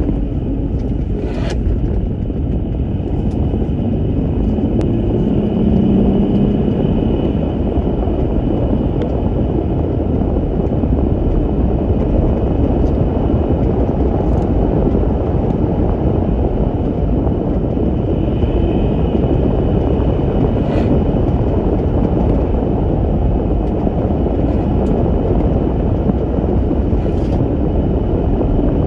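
Steady drone of a lifted Jeep Gladiator driving on 39-inch BFGoodrich tyres aired to 28 psi, heard from inside the cab: tyre and road noise mixed with the engine, with a faint high whine and a few brief clicks.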